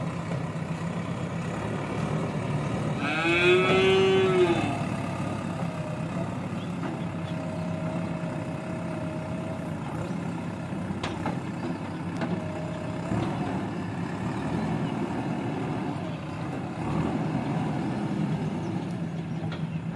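Diesel engine of heavy construction machinery running steadily. About three seconds in, a louder drawn-out call rises and then falls in pitch, then dies away.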